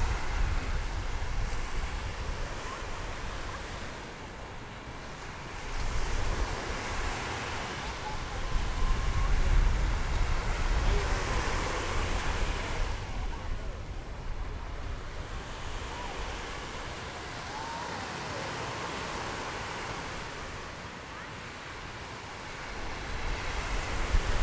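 Small waves breaking and washing up on a sandy beach, the surf swelling and fading every few seconds, with wind rumbling on the microphone.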